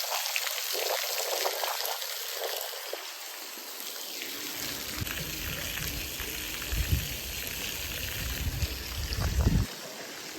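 Running water trickling and pouring steadily, with a few low thumps in the second half.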